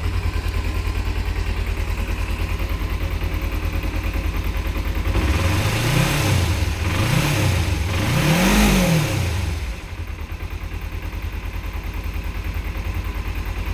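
Kawasaki ZZR250's parallel-twin engine through its stock exhaust, idling steadily, then blipped three times about five seconds in, the last rev the highest, before dropping back to idle.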